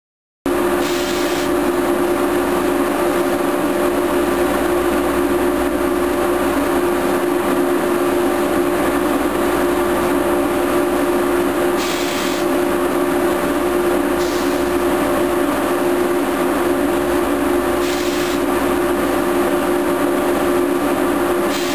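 Steady machine hum of trains at a railway station, a fixed low drone with higher steady tones over it, broken a few times by short hisses of air. It starts suddenly about half a second in.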